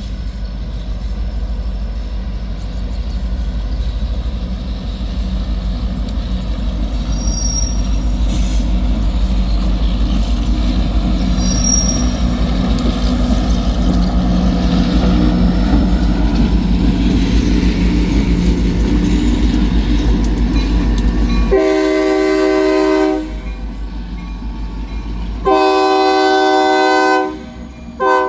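Heavily loaded freight train rolling past with a steady low rumble and a couple of brief high wheel squeals. About 21 seconds in the locomotive's multi-chime horn sounds: two long blasts and a short one near the end.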